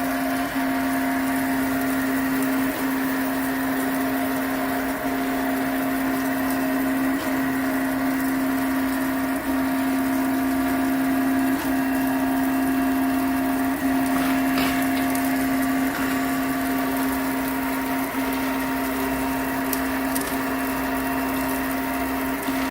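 CoreXY 3D printer's stepper motors running with a steady whine, the pitch dipping briefly about every two seconds as the print head changes direction.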